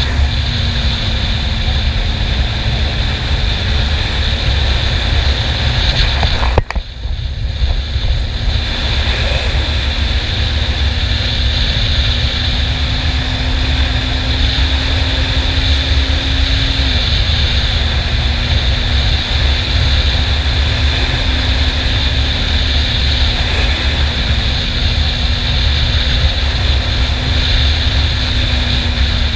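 Honda CB400 Super Four inline-four engine running at a steady pitch under way, with heavy wind rumble on the microphone. The sound drops out briefly about seven seconds in, and the engine note steps down slightly a little past halfway.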